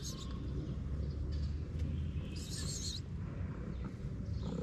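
Steady low outdoor rumble, with a short, high, wavering chirp about two and a half seconds in.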